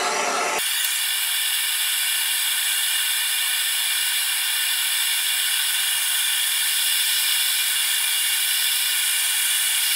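BernzOmatic TS4000 hand torch flame hissing steadily as it heats a seized cast-iron exhaust manifold bolt; the hiss starts about half a second in.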